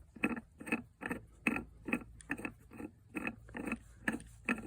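Stem of a long frost-free outdoor water tap being unscrewed by hand from its valve body: a regular run of short mechanical strokes, about three or four a second, as it turns out of its threads.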